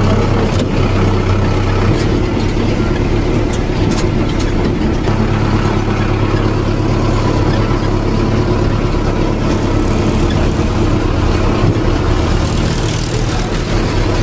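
Tractor engine running steadily at a low idle, a continuous low throb.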